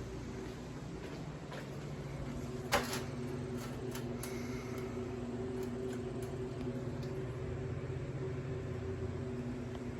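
Air conditioning unit running with a steady hum, with a sharp click about three seconds in.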